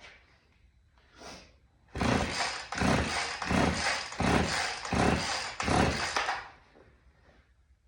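Husqvarna 50 two-stroke chainsaw pulled over on its recoil starter about six times in quick succession with a compression gauge fitted, engine not firing. The gauge reads about 86 PSI, low compression that the owner puts down to rings stuck from sitting for years.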